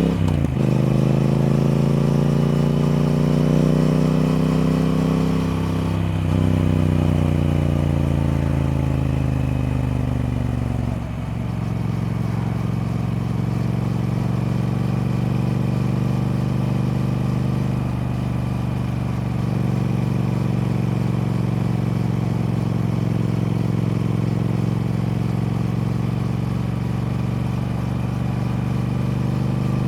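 Triumph Speed Twin parallel-twin motorcycle engine under way. Its note eases down over the first ten seconds or so, changing character twice, then holds a steady cruising note.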